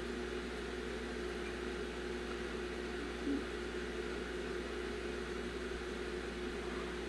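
Steady mechanical hum of a motor or fan running, with a brief small knock about three seconds in.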